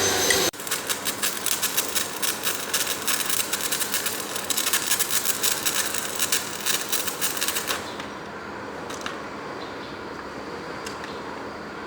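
Dense, rapid, irregular crackling clicks from metalwork on the shaft repair. They start just after a louder machine noise cuts off, and stop about eight seconds in, leaving a quieter steady background with a few scattered clicks.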